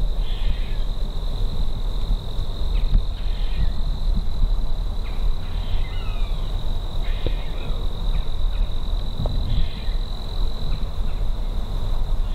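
A steady high-pitched insect drone, cricket-like, holding one pitch throughout, with shorter chirping calls a little lower in pitch coming every second or so. A low rumble on the microphone runs underneath and is the loudest part.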